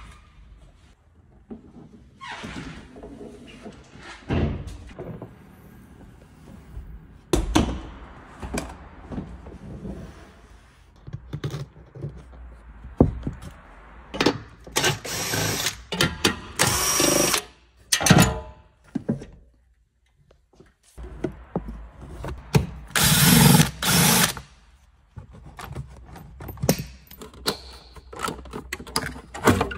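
Car interior disassembly: knocks and clunks of seats and plastic trim being handled, broken by a few short runs of a cordless drill, the loudest a run of about two seconds near the end.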